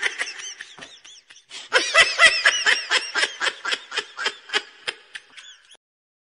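High-pitched laughter, a quick run of "ha-ha" pulses that breaks off briefly, then comes back louder and slows and fades away near the end.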